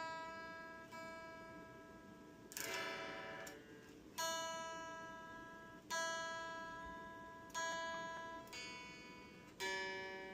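Epiphone SG Junior electric guitar played slowly: single notes and a chord plucked one at a time and left to ring out, a new one about every one and a half to two seconds.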